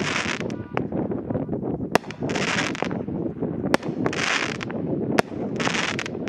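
A 16-shot, 200-gram firework cake firing: a sharp bang about every second and a half, each followed by a half-second burst of hissing. Wind rumbles on the microphone underneath.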